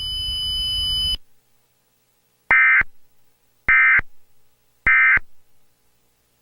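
EAS end-of-message data tones: three identical short, harsh digital bursts about a second apart, closing an emergency alert broadcast. A steady hiss with faint tones cuts off about a second in, before the bursts.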